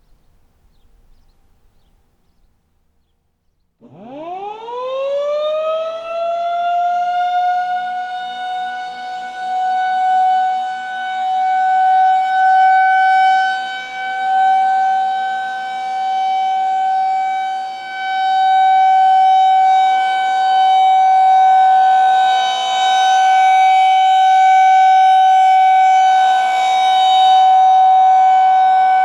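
Federal Signal 2001-130 electromechanical outdoor warning siren starting up about four seconds in. Its pitch winds up quickly to a steady high tone, the Full Alert signal. The loudness swells and fades every couple of seconds as the rotating siren head sweeps around.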